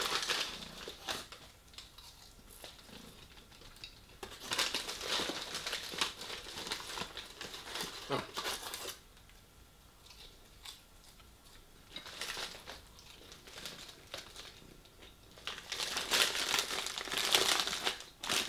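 Takeaway bag crinkling and rustling as hot chips are pulled out by hand, in two longer bouts about a third of the way in and near the end. Quieter chewing comes in between.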